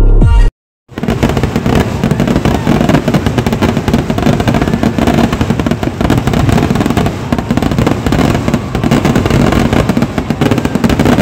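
Kerala temple-festival fireworks (vedikkettu): a loud, dense barrage of rapid firecracker bangs and crackling, starting about a second in after a brief cut from electronic music and continuing without a break.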